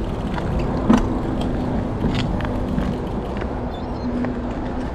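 Wind rush and tyre noise on a bike-mounted camera as the bicycle coasts downhill, with a steady low hum underneath and a few light clicks.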